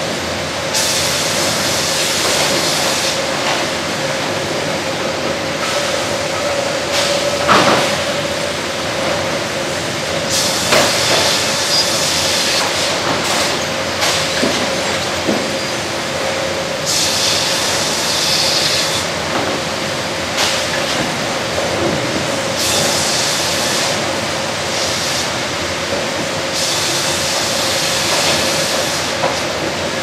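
McDonough band headrig and log carriage at work: the carriage runs back and forth on its rails while the band saw cuts. Steady machine noise with a high steady tone, overlaid by hissy passes of about two seconds every few seconds and a few sharp knocks.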